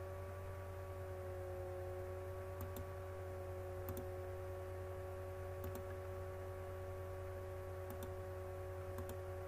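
Several faint, short computer mouse clicks spaced a second or two apart, over a steady electrical hum with a few constant tones.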